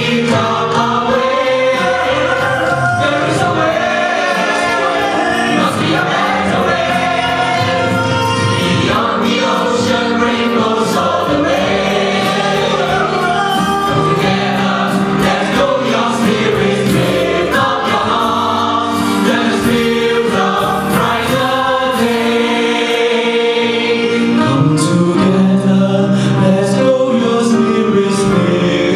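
A choir of men and women singing a song together over instrumental backing.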